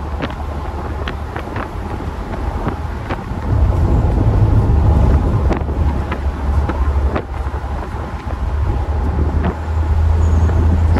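Wind buffeting the microphone in the open cockpit of a Mercedes SLK 230 Kompressor on the move with its roof down, over its supercharged four-cylinder engine and tyre noise. The low rumble grows louder about three and a half seconds in.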